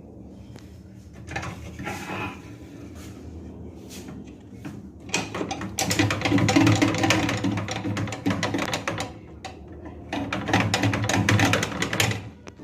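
Repaired microwave oven running with a steady low hum. Two long stretches of clattering, rustling noise come over it, the first about five seconds in and the second about ten seconds in.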